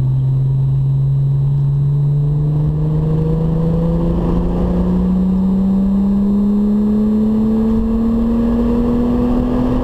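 VW Golf 3 VR6's narrow-angle V6 engine accelerating hard in one gear, its pitch rising steadily without a break, heard from inside the cabin.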